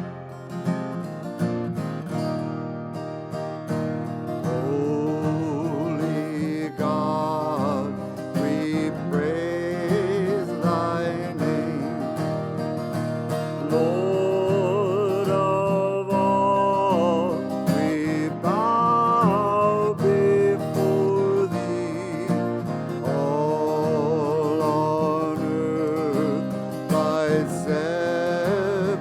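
Acoustic guitar strumming with a singer's voice coming in after about four seconds, long held notes with vibrato.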